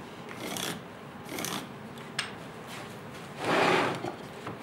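Planed hardwood strips being pushed together and slid across a wooden workbench top. There are three rasping scrapes, the longest and loudest about three and a half seconds in, and a short sharp wooden knock about two seconds in.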